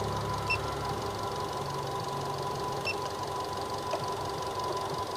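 Nissan Grand Livina's engine idling steadily, running for an alternator charging test. Two short electronic beeps come about half a second in and again near three seconds.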